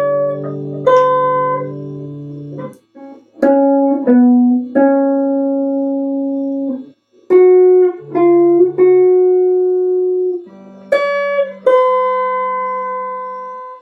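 Instrumental music: a slow melody of single notes, each struck and left ringing, with short silences between phrases.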